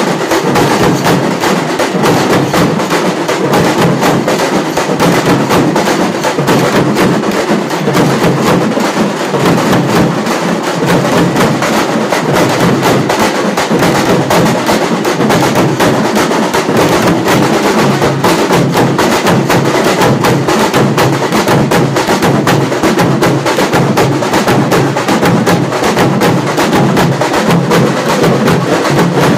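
Loud, fast drumming on hand-held frame drums, a dense, unbroken stream of strokes.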